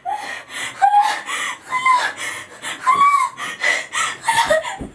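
A woman's voice in a string of short, high-pitched cries, each rising and falling, several in a row at about one a second.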